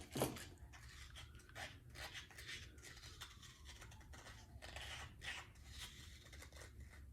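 Faint scattered clicks and scrapes of a baking powder container and measuring teaspoon being handled while a teaspoon of powder is scooped out.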